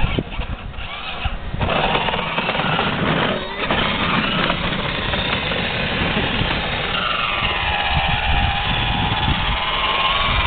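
Battery-powered ride-on toy car driving over pavement: its small electric motor and gearbox whine while the hard plastic wheels grind on the surface, starting about a second and a half in, with a wavering whine later on.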